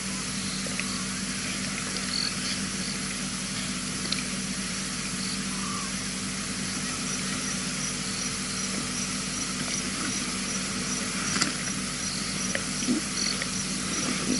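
Night-time bush ambience through a wildlife camera's microphone: steady hiss with a low electrical hum, joined about halfway by a faint, evenly pulsed insect chirping. A few soft clicks and rustles near the end.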